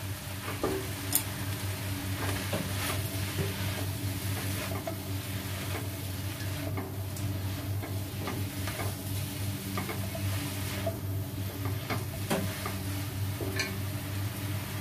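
Udon noodles, chicken, cabbage and carrot sizzling in a wok while being tossed and stirred with a spatula and chopsticks, with scattered scrapes and taps of the utensils against the pan. A steady low hum runs underneath.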